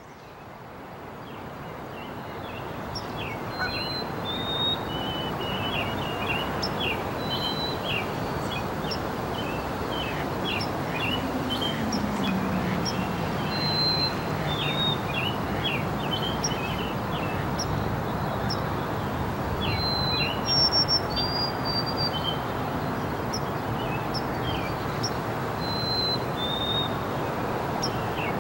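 Songbirds chirping and whistling, many short calls and held notes, over a steady outdoor background hum; a low drone falls in pitch near the middle. The sound fades in over the first few seconds.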